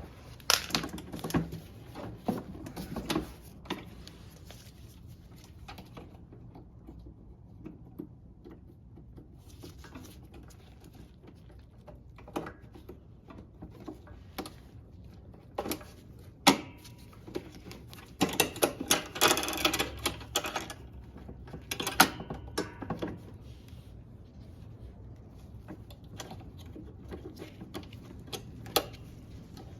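Scattered sharp metallic clicks and taps of hand work on a Honda lawnmower's rear wheel adjuster, as a spring retaining clip is worked up its groove to snap in. A busier run of clicking and scraping comes about two-thirds of the way through.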